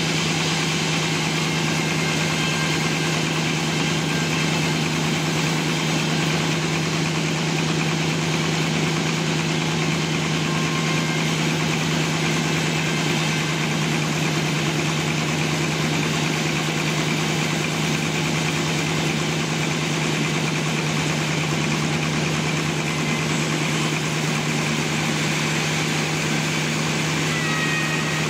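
Sawmill engine running steadily at an even pitch, a constant mechanical hum with no let-up.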